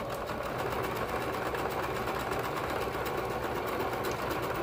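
Domestic sewing machine running steadily, stitching a seam at a fast, even rate.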